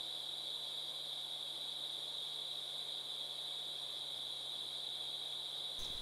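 Forest insects droning: one steady, high-pitched whine that holds the same pitch without a break.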